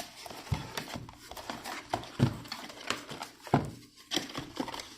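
Cardboard booster boxes being handled as they come out of an opened display box: a string of irregular light knocks and taps with some scraping and rustling of cardboard.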